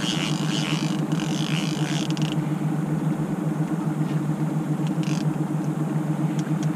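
A small boat's outboard motor running steadily at trolling speed, a constant low hum. A hissing rush sits over it for the first two seconds or so, and a few faint clicks follow later.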